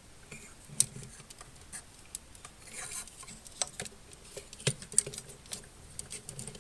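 Hard plastic model-kit parts clicking and rubbing as stiff front skirt armor pieces are pushed and pegged onto a Gunpla's hip. The light clicks and taps are scattered, with the sharpest about a second in and two close together near the five-second mark.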